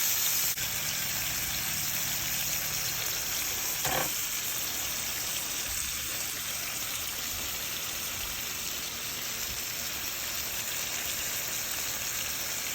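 Ground-beef burger patties frying in a hot pan in their own fat, a steady sizzling hiss, with a brief knock about four seconds in.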